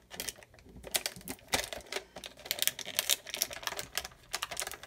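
Plastic shrink wrap bag crinkling and crackling as hands fold it around a mug and press tape down on it: a dense run of small irregular clicks.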